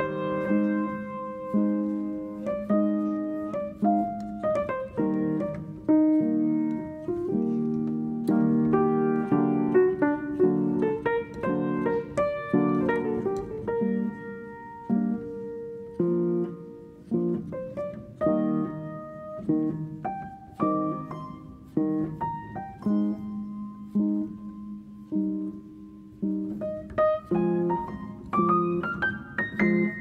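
Background piano music: a slow melody over sustained chords, each note struck and fading.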